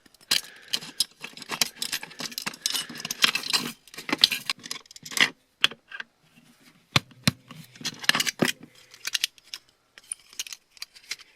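Small metal parts of a laptop hard drive clicking, scraping and rattling as it is worked apart with a small screwdriver, in irregular bursts.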